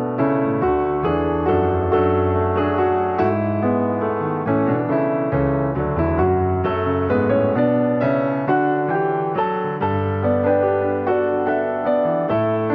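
Piano music: a keyboard playing a steady flow of notes and chords.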